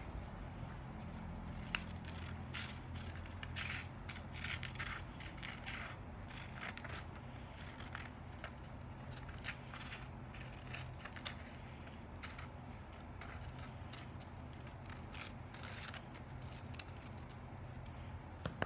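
Scissors snipping through a sheet of paper: a long run of short, irregular cuts as a shape is cut out along its outline.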